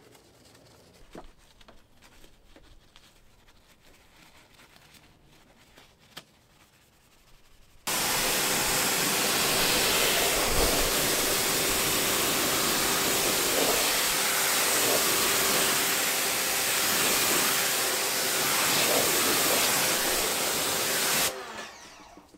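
A pressure washer spraying water against the underside of a vehicle hood, rinsing off degreaser. It starts suddenly about eight seconds in as a loud, even hiss with a steady hum beneath it, and cuts off near the end. Before it, only faint brushing and handling sounds.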